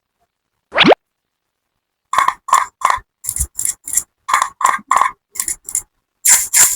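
A short rising whistle-like tone, then a run of crisp, separate clicking taps of small hard objects, about three a second, ending in a longer crunchy rattle. The taps are set off by total silence.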